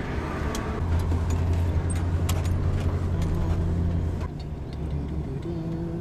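Camper van driving, heard from inside the cab: a steady low engine and road drone with small rattles and clicks. The drone drops off about four seconds in.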